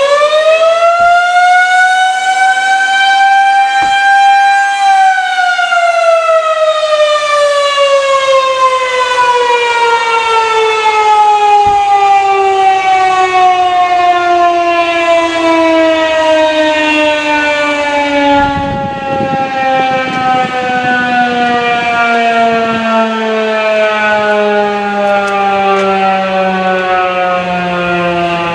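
Federal Signal 2001-130 rotating mechanical siren on its attack wail: the tone climbs once to its top pitch, then winds down in one long, slow falling moan as the rotor coasts down.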